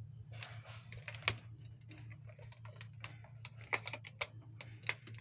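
Irregular small plastic clicks and knocks as a ring light and its mount are handled and fitted onto a tripod stand, over a steady low hum.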